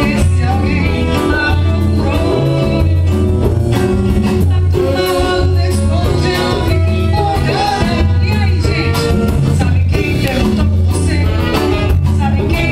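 Live band playing Brazilian popular music, with a strong, pulsing bass line and steady percussion under a melody.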